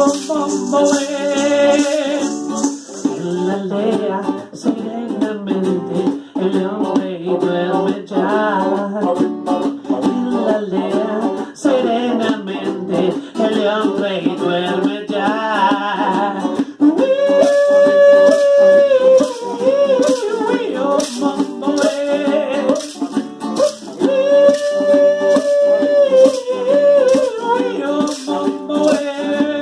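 Live acoustic music: an acoustic guitar strummed, a maraca shaken over a hand drum, and voices singing. The singers twice hold a long note, a little past halfway and again near the end.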